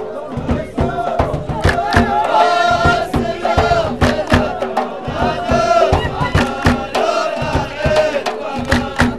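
A line of men chanting together in chorus over sharp, rapid hand clapping.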